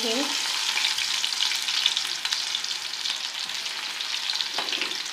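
Onion dropped into hot ghee where green chillies are already frying: a sizzle that jumps up at once and eases slightly, with a spoon stirring through it.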